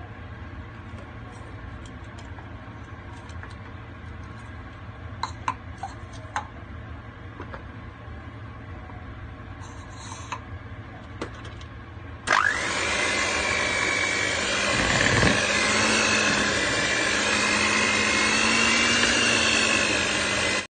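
Electric hand mixer switched on about two-thirds of the way through, then running with a steady whine as its wire beaters churn raisins into thick cake batter. Before it starts there is only a low hum with a few light clicks.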